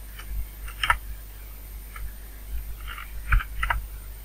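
Computer keyboard keys tapped a few times, short separate clicks with the loudest about three seconds in, as letters are deleted from a search box. A low steady hum runs underneath.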